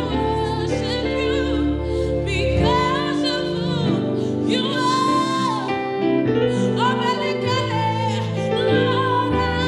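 Worship music: a singing voice with gliding, held notes over sustained instrumental chords.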